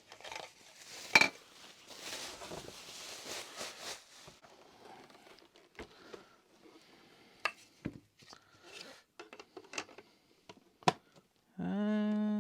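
Vacuum cleaner tool attachments being taken out of their box and handled: scattered clacks and knocks, with rustling of packing paper about two to four seconds in. Near the end comes a long hummed "hmm".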